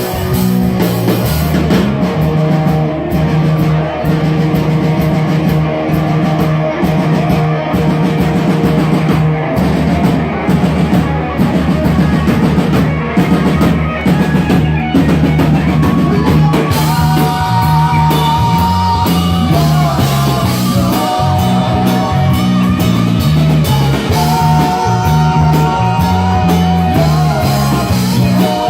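Rock band playing live: drum kit and electric guitars, with held high notes standing out about two-thirds of the way through and again near the end.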